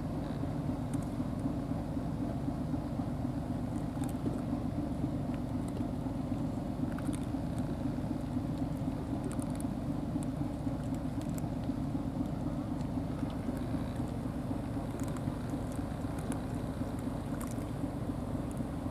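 Steady low mechanical hum that does not change, with faint scattered ticks over it.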